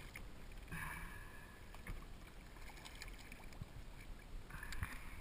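Water sloshing and lapping against a kayak hull, with two short splashes, about a second in and near the end, from a hooked mahi thrashing at the surface beside the boat.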